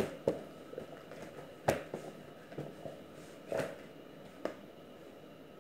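Hands kneading soft pizza dough on a plastic-covered counter: about five scattered slaps and thuds as the dough is pressed and turned, the loudest a little under two seconds in.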